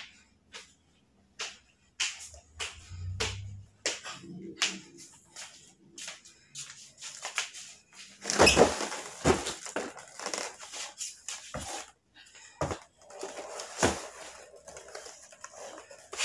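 Cardboard boxes of stock being handled, carried and set down by hand: a run of scattered knocks and scuffs, the loudest a heavy thud with a scrape about eight and a half seconds in.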